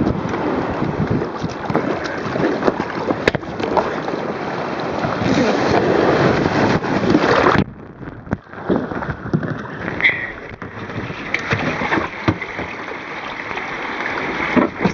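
Surf and rushing water washing over a sea kayak in the beach break, with splashes and knocks against the hull. About halfway through, the sound suddenly drops to a dull, muffled rumble as the microphone goes under the sandy water, then the splashing gradually comes back.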